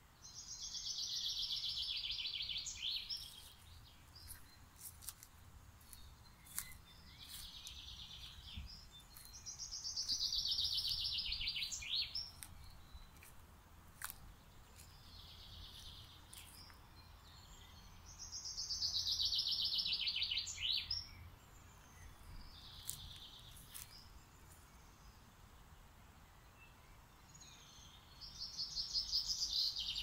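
A songbird singing the same rapid trilled phrase four times, about every nine seconds; each phrase falls in pitch and ends in a short flourish. Fainter snatches of bird song come between the phrases.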